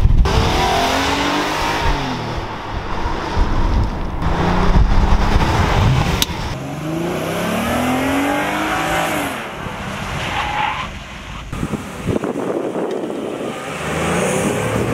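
Ford Police Interceptor Sedan being driven hard through a tight cone course. The engine revs up and falls back again and again over steady tyre noise as the car accelerates and brakes between turns.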